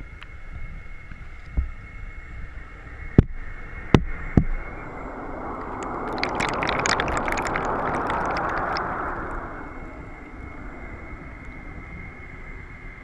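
Air bubbles rising through the water of a seaweed incubation tank, heard underwater through a camera housing: a low steady rush that swells into a fizzing, crackling burst of bubbles from about five to ten seconds in. A few sharp knocks come in the first few seconds, over a faint steady high tone.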